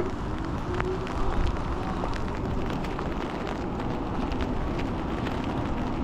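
Wind rumbling on the microphone and tyres hissing on wet pavement as an e-bike rides through rain and gusty wind, with scattered light ticks and a faint steady whine.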